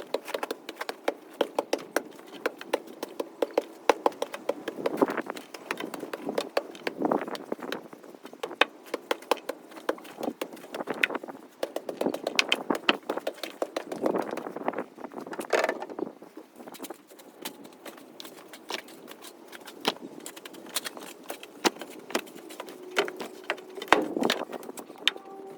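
A long run of sharp, irregular knocks and clicks, often several a second, with no steady rhythm.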